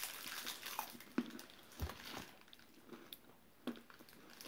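Faint scattered clicks and soft knocks of small wrapped packages and plastic tubs being handled, with one low thump a little under two seconds in.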